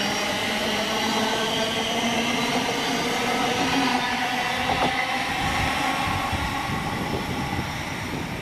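A train running past at close range: a steady rail rumble with several high, steady whining tones over it, easing slightly near the end.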